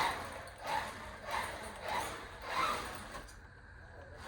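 MJX Hyper Go 16210 RC car's electric motor and drivetrain whirring in short repeated throttle bursts, about five pulses in the first three seconds, then quieter, as it runs on paddle tires across a garage floor.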